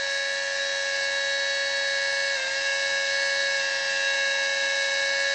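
Small electric transfer pump running with a steady whine, pushing windshield washer fluid through a hose into a tractor tire, estimated at about 6 to 7 PSI. Its pitch dips briefly about two and a half seconds in.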